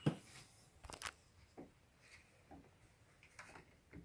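Scattered clicks and knocks of a UPVC door handle and its loosened fixings being handled as the handle comes off the door: a sharp knock at the start, another about a second in, and a few fainter ones after.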